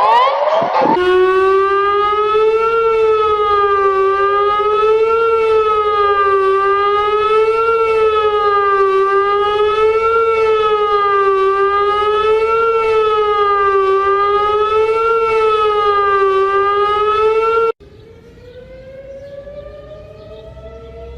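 Civil defense siren sounding a loud wail whose pitch wavers gently up and down about every second and a quarter. It cuts off suddenly near the end, and a quieter siren then begins, slowly winding up in pitch. In the first second, the tail of a different, fast-sweeping siren is heard.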